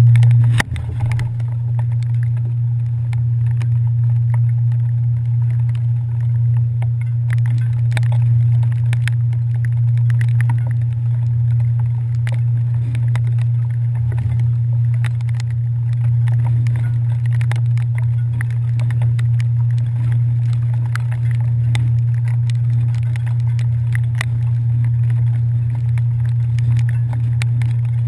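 Ferry engines droning steadily at a low, even pitch, with scattered light ticks over the drone.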